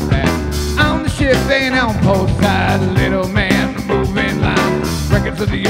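Live rock band playing an instrumental passage between sung verses, with a drum kit keeping a steady beat under electric guitars.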